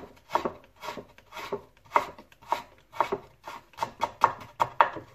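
Kitchen knife cutting raw carrot slices into julienne strips on a wooden cutting board, each stroke ending in a tap on the board. The cuts come evenly at about two a second and quicken toward the end.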